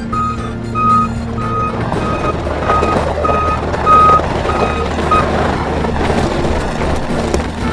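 Skid steer's reversing alarm beeping about twice a second over its running engine; the beeping stops about five seconds in while the engine keeps running.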